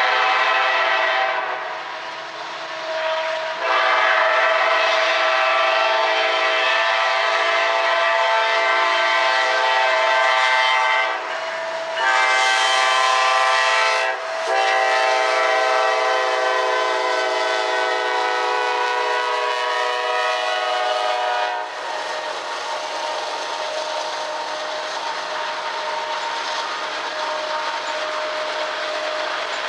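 Diesel locomotive air horn sounding a multi-note chord in a series of long blasts with one short blast near the middle, the long-long-short-long pattern of a grade-crossing signal. After about 22 seconds the horn stops, leaving the steady rumble and wheel clatter of loaded grain hopper cars rolling past.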